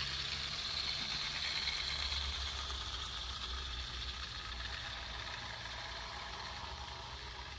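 Live-steam 16mm-scale garden railway locomotive hauling a long train of small open wagons: a steady hiss with the rumble and rattle of the wagons' wheels on the track, growing fainter as the train runs away.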